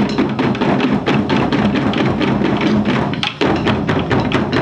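Ensemble taiko drums played together in a fast, dense rhythm of stick strikes, with a brief break about three seconds in before the drumming resumes.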